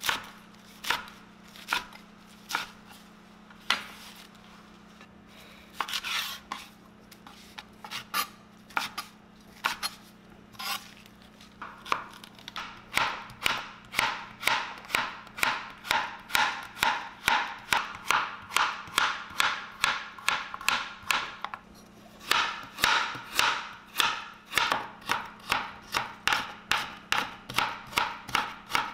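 Chef's knife cutting vegetables on an Epicurean composite cutting board: a few separate knocks while slicing lettuce, then a steady run of about two crisp chops a second through cucumber and carrot, with a short break partway.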